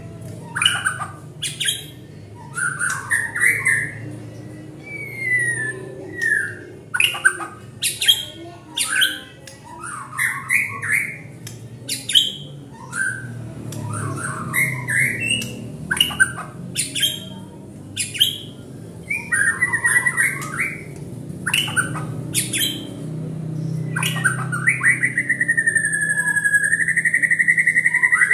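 White-rumped shama singing: a varied run of short whistles, sweeping notes and harsh chirps with brief gaps between phrases, then, from about three-quarters of the way through, one long, steady, rapid trill.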